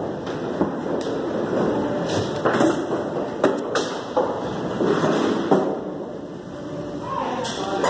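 Bowling-alley din: irregular knocks and clattering of balls and pins over a steady rumble.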